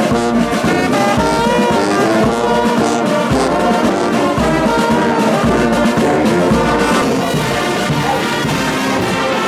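Brass band of trombones, trumpets and euphoniums playing a tune together in harmony, with a bass drum beating about once a second.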